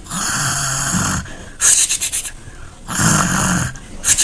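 A person imitating snoring: two snores, each about a second long with a low buzzing tone, and an airy hiss of breath out between them.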